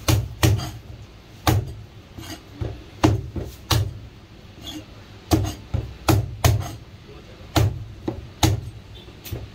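Chinese cleaver chopping marinated goose on a cutting board: a run of sharp chops with a heavy thud, irregularly spaced at roughly two a second.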